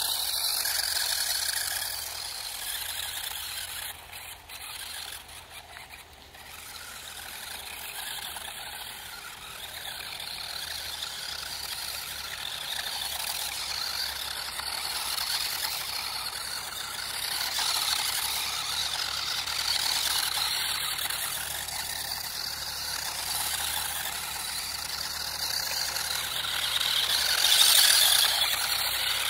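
Electric RC drift car running, its small motor and tyres making a high-pitched noise that rises and falls as it drives and slides. A few sharp clicks come about four to six seconds in.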